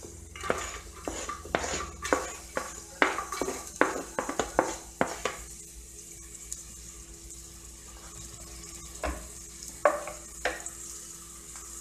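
Chopped onion scraped off a plastic cutting board with a wooden spoon into hot oil in a pressure cooker: quick taps and knocks for the first five seconds or so, then the onion sizzling steadily in the oil, with a few more knocks near the end.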